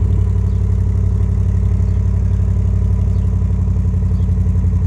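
Exhaust of a 2019 Ram 1500 Rebel pickup truck idling steadily after a cold start, a low even pulsing from the twin tailpipes.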